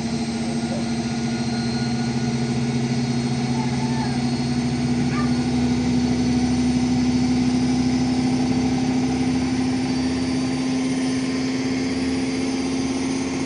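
Indesit washing machine in its final spin near top speed: a steady motor and drum whine that creeps slightly higher in pitch, with a rumble the owner puts down to bad drum bearings and an unbalanced load.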